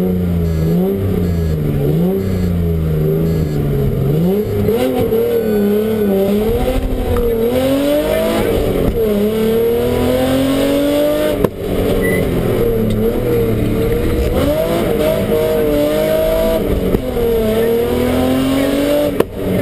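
BMW rally car engine at speed, heard from inside the cabin, its note climbing and dropping back again and again as the car is driven hard. The sound drops out briefly twice, once midway and once near the end.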